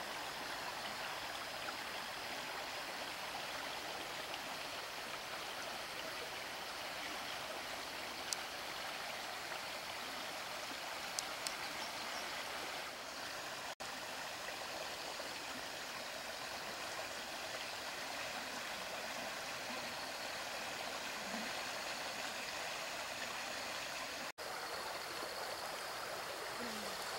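Steady rushing of a flowing creek, an even wash of water noise with a few faint ticks. The sound drops out for an instant twice.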